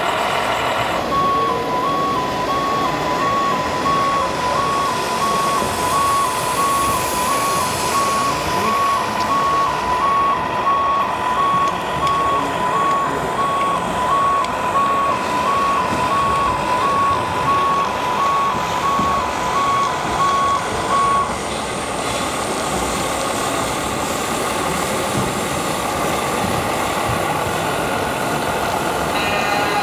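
Two-tone fire-engine siren from the sound module of an RC scale Scania fire engine: a high and a low note alternating steadily for about twenty seconds, then stopping, over constant background noise.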